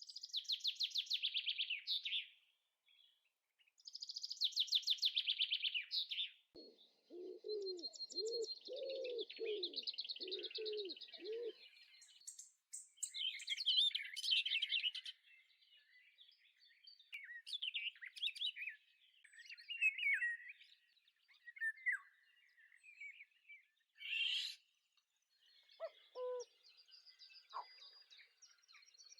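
Birds chirping and singing: fast, high-pitched trills in the first six seconds, a run of about eight lower repeated notes from about seven to eleven seconds in, then varied short chirps and whistles.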